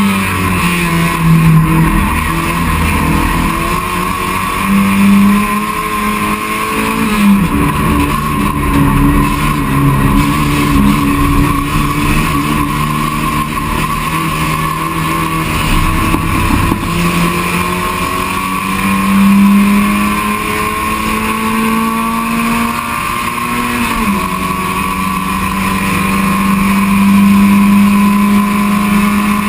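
Touring race car's engine heard from inside the cockpit at racing speed, its pitch climbing and then dropping in steps as the driver shifts gears and slows for corners.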